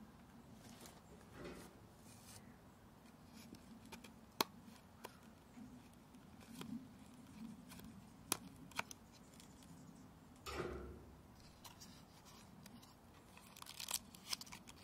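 Faint handling of a small cardboard box: a few sharp clicks as a blade cuts it open, a short scraping burst about ten seconds in, then card flaps and plastic wrapping rustling near the end.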